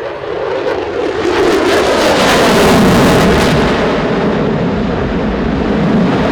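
F-22 Raptor's twin jet engines roaring past in a loud flyby: the roar builds over the first two seconds with a crackle at its peak, then the pitch falls as the jet goes by.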